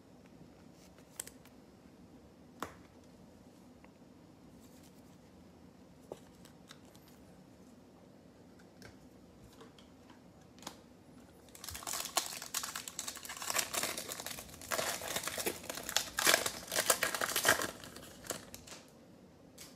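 Foil wrapper of a 2020 Panini Select football card pack crinkling loudly for about seven seconds as it is handled and opened, starting a little past halfway, after a few faint clicks.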